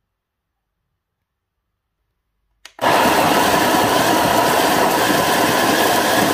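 A short click, then the Graef CM900 conical burr coffee grinder starts about three seconds in and runs steadily, grinding beans. This is the timed grind that programs the single-portion dose.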